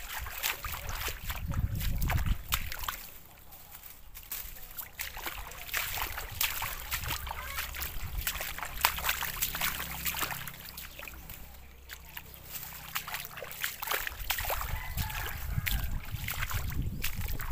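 Water splashing and sloshing, as of someone wading through a flooded field, in many irregular small splashes over a low rumble.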